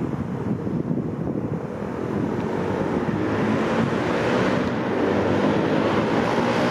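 Class 57 diesel locomotive approaching, its EMD two-stroke diesel engine and its wheels on the rails growing steadily louder from about two seconds in, over a low rumble of wind on the microphone.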